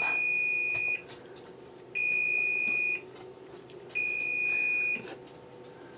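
Kitchen oven timer beeping: three long, high electronic beeps of about a second each, two seconds apart, going off for chicken baking in the oven.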